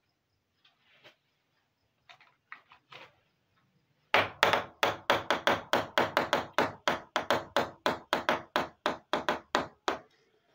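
A miniature toy ladle rocking and turning on its rounded bowl on a hard board, clattering in a quick, even run of about five taps a second for some six seconds and fading slightly toward the end. A few lighter knocks come before it as toy pieces are set down.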